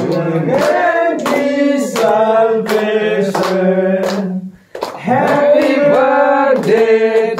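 A group of men and women singing together, holding long notes, with hands clapping to the beat about twice a second. There is a short break in the singing about two-thirds of the way through.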